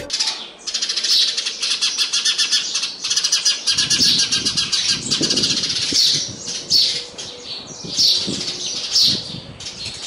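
Many house sparrows chirping in a dense, continuous chatter.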